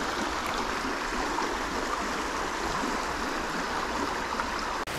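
Fast-flowing trout brook running high, its water rushing over a shallow rapid in a steady, even rush. A brief dropout breaks it just before the end.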